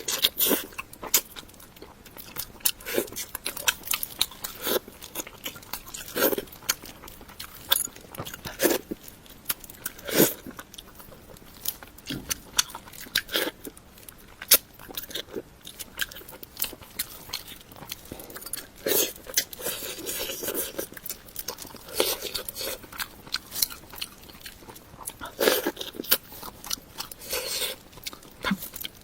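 A person eating steamed salmon head, chewing with many irregular small crunches and clicks.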